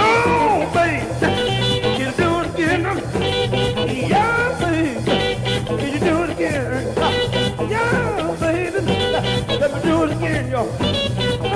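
Live electric blues band playing with guitars, bass and drums to a steady beat, a lead line bending up and down in pitch over it.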